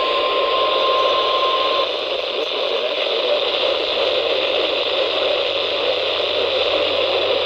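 NOAA Weather Radio 1050 Hz warning alarm tone from a weekly test, one steady tone over heavy radio static, cutting off about two seconds in. Only the static hiss of the received signal remains after that.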